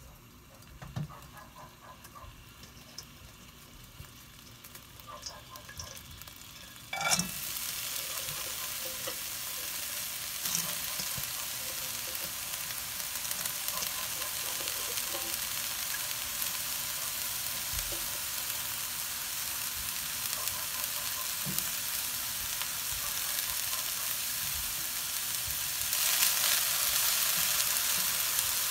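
Mung bean sprouts land with a sudden rustling hit in a hot, oil-free nonstick wok about a quarter of the way in, then sizzle steadily as they dry-fry. The sizzle gets louder near the end as the sprouts are tossed by hand.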